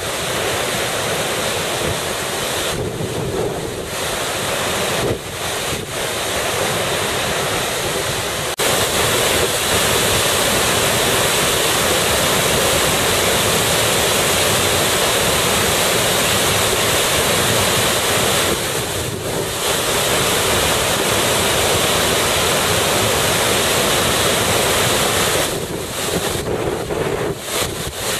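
Waterfall swollen with typhoon rainwater, a loud steady rush of falling water that steps up louder about eight seconds in.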